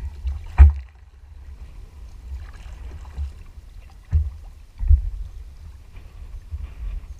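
Kayaks being paddled: a steady low rumble with three sharp thumps from the paddling, the loudest about half a second in, the others near four and five seconds.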